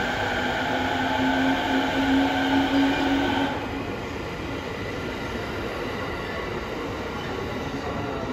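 JR East 209 series electric train pulling away, its traction motors giving a whine that rises slowly in pitch. After about three and a half seconds this changes abruptly to a steady rumble of the train rolling past.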